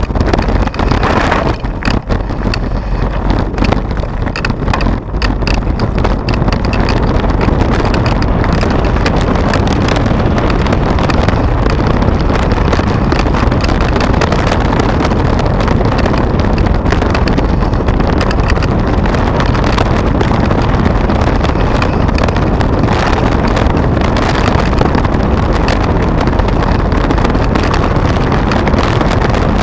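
Steady wind noise buffeting the microphone of a camera on a mountain bike riding a gravel track, mixed with the tyres on the gravel. Over the first several seconds the bike clatters over rough ground.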